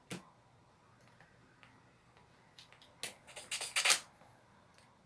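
Clicks and rattles of plastic snap-circuit kit parts being handled: one sharp click near the start, then a quick cluster of clicks about three to four seconds in. The switched-on radio's speaker gives no sound, because of a loose connection in the circuit.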